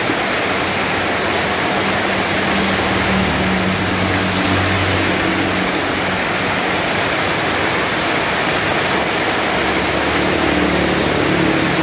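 Heavy rain falling steadily on the road and pouring off roof edges, a dense even hiss. Under it, a motor vehicle engine hums steadily at low pitch, coming and going.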